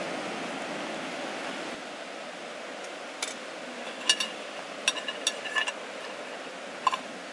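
Steady rush of surf on the beach, with several short sharp clicks and ticks between about three and seven seconds in.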